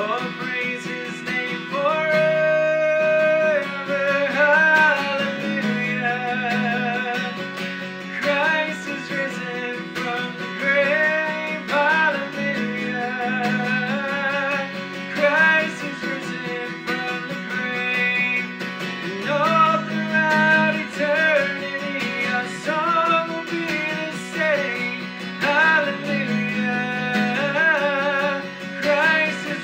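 A man singing a worship song to his own strummed acoustic guitar.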